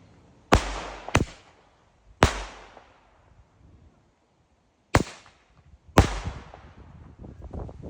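Vintage Temple of Heaven Flashing Thunder Roman candle firing its shots: five sharp, loud bangs at uneven spacing, each trailing off in echo, with a patter of smaller cracks starting near the end.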